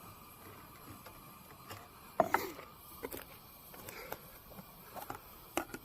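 Metal utensil clicking and clinking against a frying pan while food is stirred or served: a few sharp clinks about two seconds in, then scattered single clicks.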